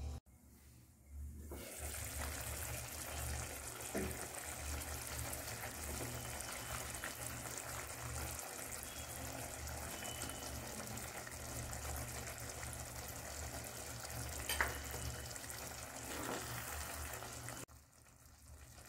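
Potato-fenugreek curry gravy simmering in a pan on the stove: a steady sizzling hiss that starts about a second in and stops shortly before the end, with two faint clicks along the way.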